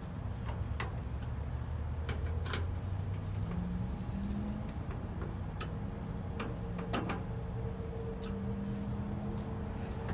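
Hand screwdriver driving the mounting screws into a pellet grill's metal hopper: a few sharp clicks and ticks, scattered a second or more apart, over a steady low hum.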